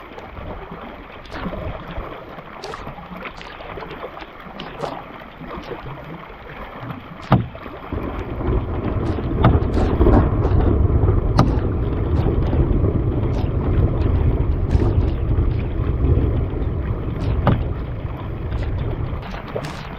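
Canoe being paddled through rough weather: water noise with scattered sharp knocks, one louder knock about seven seconds in. About eight seconds in a loud low rumble sets in and carries on for over ten seconds before easing near the end.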